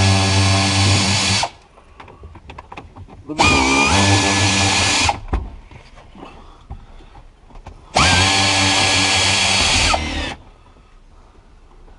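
Power drill running in three bursts of about two seconds each, each spinning up to a steady whine and then stopping.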